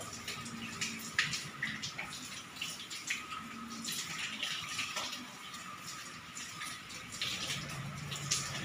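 Black uPVC four-panel folding door being folded open by hand: scattered light clicks and knocks from the panels, hinges and track. They sound over a steady hiss.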